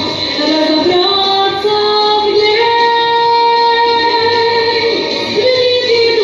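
Woman singing a song, holding one long note through the middle of the phrase.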